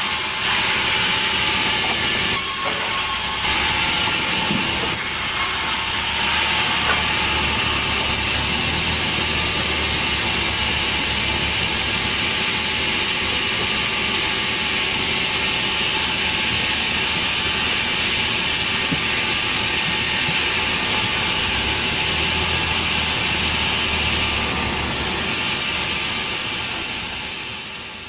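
Sawmill band saw running with a steady hissing whine, its blade at first cutting a large kelampayan log; the noise fades out near the end.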